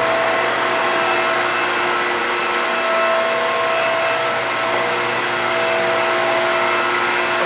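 Mollart A175 CNC twin-spindle gun drill running under power: a steady whirring hiss with several constant whine tones over it.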